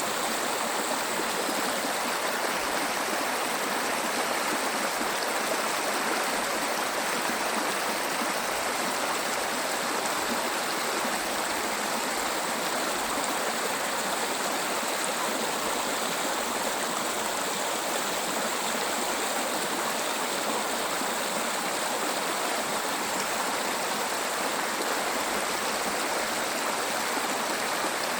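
Small waterfall: water pouring and splashing in a steady rush.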